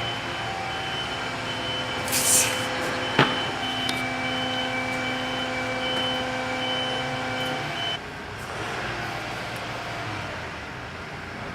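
A steady hum of a vehicle engine running nearby, with a short hiss about two seconds in and a sharp click about a second later. The hum cuts out about eight seconds in, leaving quieter background noise.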